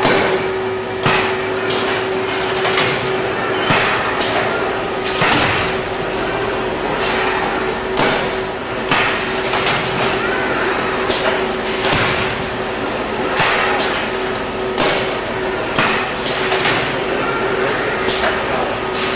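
Automated palletizing line running, with a steady machine hum and a constant tone. Irregular knocks and clacks, about one or two a second, are typical of cases and machine parts moving and landing.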